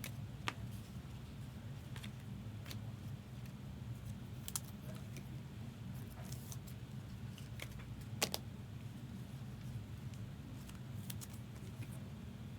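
Scattered light plastic clicks and ticks of trading cards being handled and slid into rigid plastic top loaders, the sharpest about half a second in and about eight seconds in, over a steady low hum.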